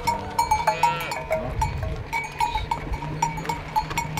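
Cowbells clanking irregularly on a herd of cattle moving along a dirt road, with a short high-pitched animal call about a second in.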